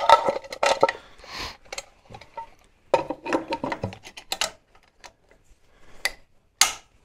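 Intermittent clicks, clinks and rustling from handling engine parts on a Grasshopper 321D mower, with a burst of clatter near the start and another about three seconds in.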